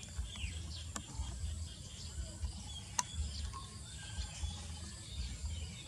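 Outdoor ambience: faint bird chirps over a low rumble, with a couple of sharp clicks, the loudest about three seconds in.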